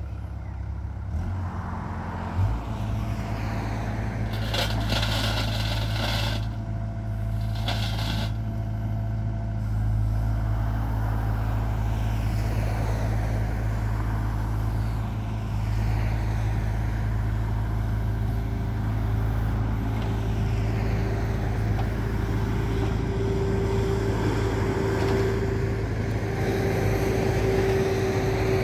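John Deere 85G excavator's diesel engine running steadily, picking up a couple of seconds in, while its hydraulic boom and bucket are worked. Two brief loud noisy bursts come early on, and a steady whine joins the engine for the last ten seconds or so.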